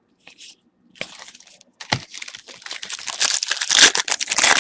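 Wrapper of a football trading-card pack being torn open and crinkled. It starts with a few faint crackles, then from about two seconds in turns to dense crinkling that grows louder toward the end.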